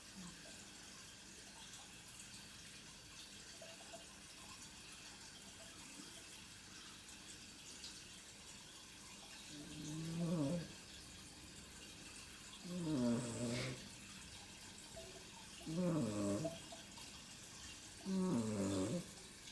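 A pet snoring. After about nine seconds of faint background, four snores come roughly every two and a half to three seconds, each lasting about a second and wavering in pitch.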